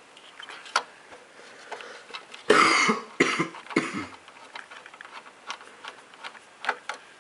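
Small clicks and ticks of a small Torx screwdriver working tiny screws out of the Xbox 360 Slim's RF board, with one louder rush of noise lasting under a second about two and a half seconds in.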